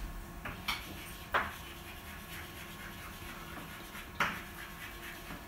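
Chalk scratching on a classroom blackboard as a word is written, with a few sharp taps of the chalk against the board.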